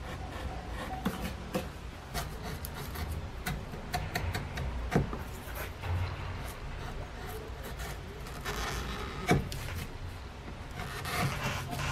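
Hand chisel paring cedar wood in a relief carving: short scraping cuts with many small clicks, and two sharper clicks about five and nine seconds in.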